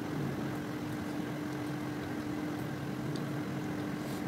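Steady low mechanical hum, like a motor or appliance running, holding one constant tone. A couple of faint ticks come in the last second or so.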